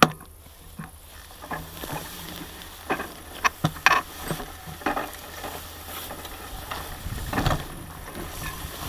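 Bicycle going through tall dry grass: stalks swishing and brushing against the bike and its camera, with irregular clicks and knocks from the bike over a steady low rumble.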